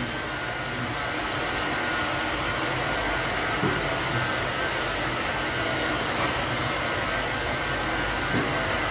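Steady whooshing hum of an air-moving machine with a faint steady whine. A couple of faint scissor snips are heard as the rabbit's fur is trimmed.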